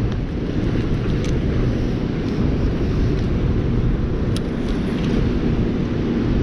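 Steady rushing of turbulent whitewater released through a dam's spillway gates, with a few faint clicks.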